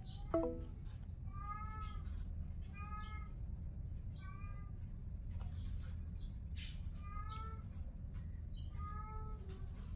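Kitten mewing repeatedly: short arched mews every second or so, with a louder cry that falls in pitch just after the start.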